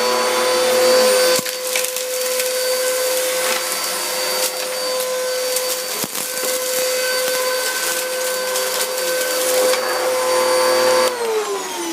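Eureka vacuum cleaner running steadily with a constant whine, a crackle of clicks mixed in from about a second and a half in. Near the end it is switched off and the motor winds down, its pitch falling away.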